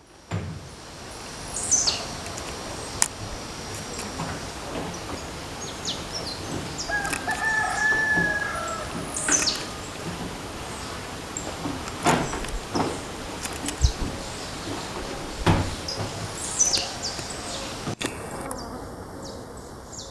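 Blue-black grassquit (tiziu) singing its short, high, buzzy note three times, several seconds apart, over a steady rushing background. A longer, lower call from another bird comes about seven seconds in, and there are a few sharp knocks.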